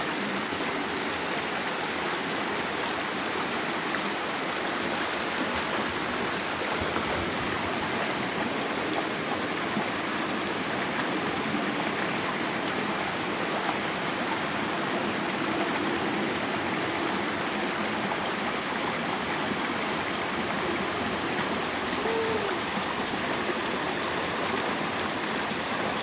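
Mountain stream rushing steadily over rocks into a pool, a continuous even sound of running water.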